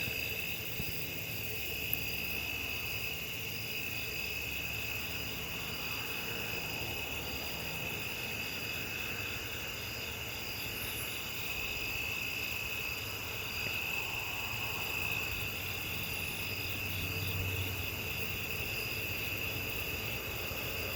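Steady high-pitched trilling of an insect chorus, with a faint low hum underneath.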